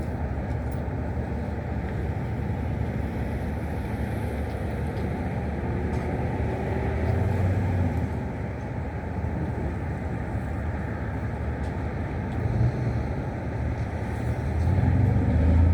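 Steady low rumbling noise with no speech, swelling louder briefly about seven seconds in and again near the end.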